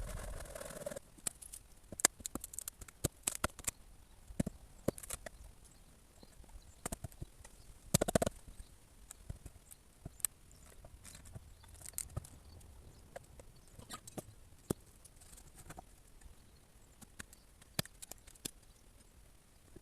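Irregular knocks and clicks of timber being handled while an old wooden deck platform is taken apart, with a louder cluster of knocks about eight seconds in.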